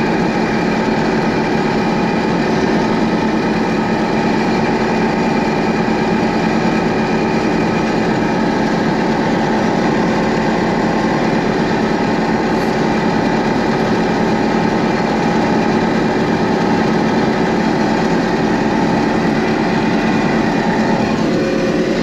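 John Deere 6620 combine running steadily under load while harvesting corn, heard from inside the cab: a constant engine tone mixed with the noise of the corn head and threshing machinery, unchanging throughout.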